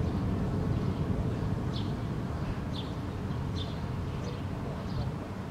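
Low rumble of distant thunder dying away, with a few short high bird chirps about once a second from about two seconds in.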